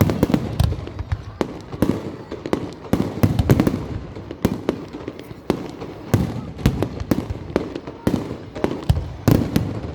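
Fireworks going off in a rapid, irregular string of bangs and crackles, several sharp reports a second with no pause.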